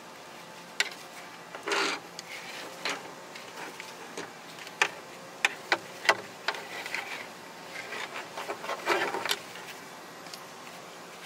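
Nylon chest-mount harness being handled: straps rustling and rubbing, with scattered sharp clicks of its plastic buckles and fittings, several close together around five to six seconds in, and longer rustles about two seconds in and near nine seconds.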